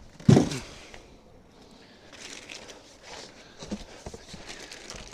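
Packaging rustling and crinkling as a sliding miter saw is lifted out of its box, with one short loud sound about a third of a second in.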